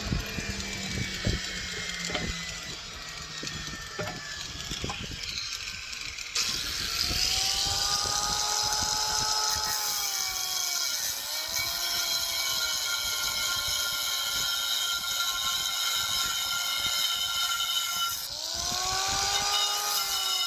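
A few knocks, then an electric power tool starts about six seconds in and runs on the cast-iron pot lid, its motor pitch rising and sagging as the load changes.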